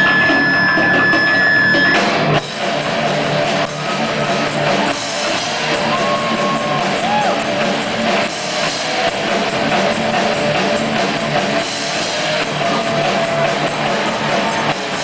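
Live rock band playing: electric guitars and a drum kit. A long held high note rings for the first two seconds, then the full band plays on with bending guitar lines.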